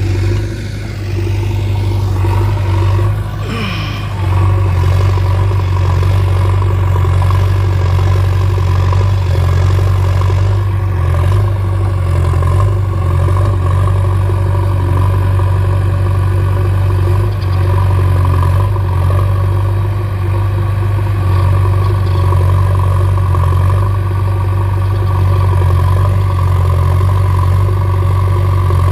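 Diesel engine of a JCB backhoe loader running steadily with a strong low hum. It dips briefly in the first few seconds, then holds even.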